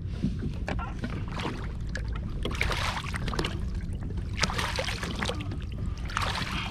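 Water sloshing and splashing around a kayak, with scattered knocks and clicks over a steady low rumble.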